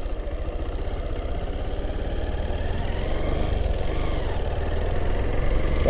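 Honda motorcycle engine running at low road speed, a rapid low throbbing from the engine, gradually getting louder as the bike picks up pace, with road and wind noise over it.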